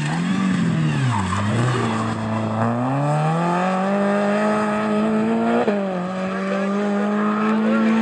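Renault Clio rally car's four-cylinder engine at full throttle: the revs dip as the driver lifts for a corner about a second in, then climb steadily, fall sharply with a quick upshift a little past halfway, and hold high again as the car pulls away.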